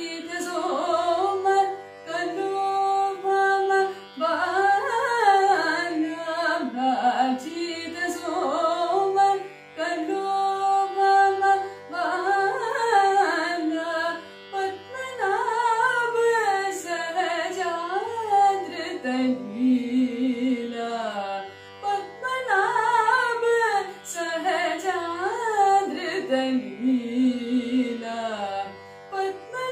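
A woman singing Carnatic music in phrases of a few seconds, the melody full of quick ornamented turns, over a steady drone.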